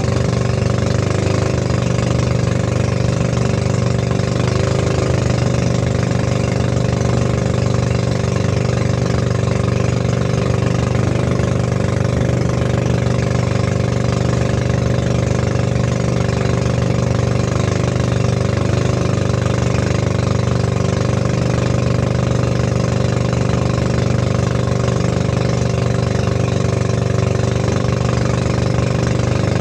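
Motorized outrigger boat's engine running at a steady speed under way, with water rushing and splashing along the hull.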